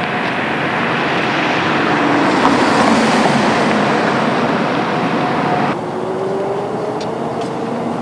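Street traffic noise from a vehicle passing by, swelling to its loudest about three seconds in. Near six seconds the sound drops off abruptly and a lower, steady traffic hum remains.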